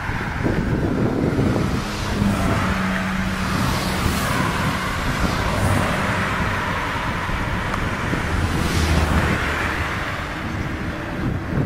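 Steady outdoor rumble of passing road traffic, with an engine hum standing out about two seconds in and a vehicle swelling past around nine seconds.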